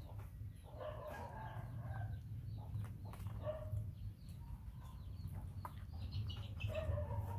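Short animal calls in a few brief bouts, over a steady low hum.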